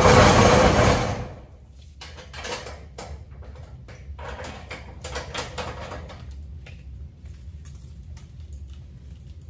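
Metal roll-up storage-unit door rattling down shut through the first second or so, then quieter clattering and clicks of its latch and lock as it is fastened, a few seconds in.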